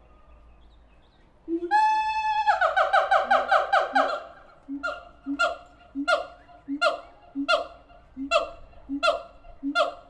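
Siamangs calling in their loud song. After a quiet start, a long call comes in about a second and a half in, followed by a fast run of rapid calls. These settle into a regular series of about one and a half calls a second, each a short low note paired with a higher bark.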